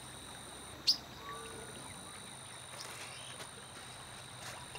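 Quiet riverside nature ambience: a steady, high-pitched insect drone, with one short, sharp bird chirp about a second in and a few faint calls after it.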